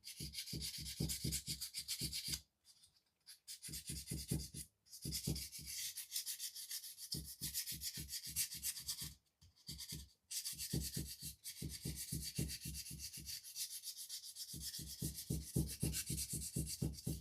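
Sandpaper flatting a diecast model car body by hand before paint. It makes quick back-and-forth rubbing strokes in runs of a few seconds, with several brief pauses.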